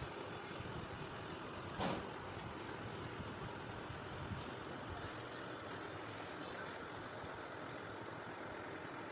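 Steady background noise with one sharp knock about two seconds in.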